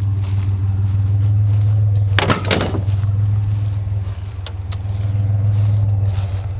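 Steady low drone of an idling truck engine, with a brief loud rattling clatter of scrap metal being handled about two seconds in and a couple of light clicks later.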